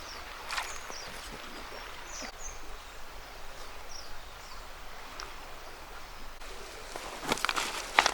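Outdoor ambience: short high bird chirps repeating over a steady background hiss, then a few brief louder noises about seven to eight seconds in.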